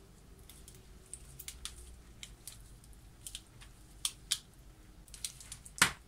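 Scattered light clicks and scrapes of a small screwdriver and multimeter probe leads being worked on a dimmer board's screw terminals, with one louder knock near the end.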